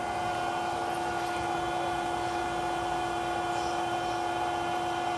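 A steady mechanical hum at an even pitch, with a strong low tone and a second tone above it.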